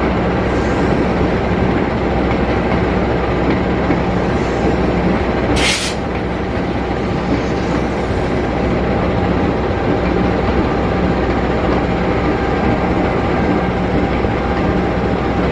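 CC 206 diesel-electric locomotive's diesel engine running loud and steady as it warms up before hauling a train. A brief hiss cuts in about five and a half seconds in.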